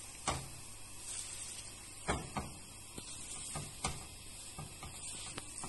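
A handful of short, irregular knocks and clatters of kitchenware being handled, over a faint steady hiss.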